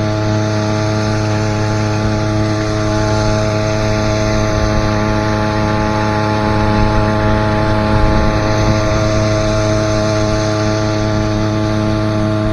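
An engine running steadily at a constant speed, giving an even hum that holds one pitch throughout.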